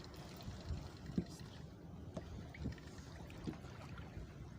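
Water lapping faintly against the hull of a small fishing boat, with a few soft knocks.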